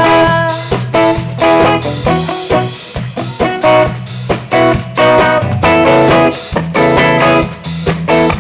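Guitar playing an instrumental passage of a song, strummed chords struck in a steady rhythm over low bass notes, between sung lines.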